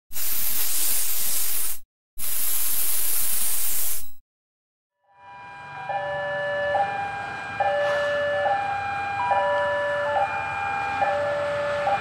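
Two bursts of loud rushing hiss, then, after a second of silence, a railway level-crossing warning alarm sounding its two alternating tones, high and low, in a steady repeating cycle, with a faint low rumble of a train approaching beneath it.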